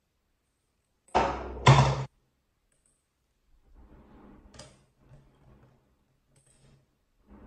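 Hollow plastic balls knocking and clattering into the hard plastic ball tray of a LeapFrog Peek-A-Shoe Octopus toy. There are two loud knocks about a second in, then softer rattling and a few light knocks.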